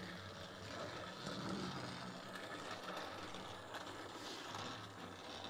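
Battery-powered toy Thomas engine running along plastic track: a faint, steady motor whir with a low hum.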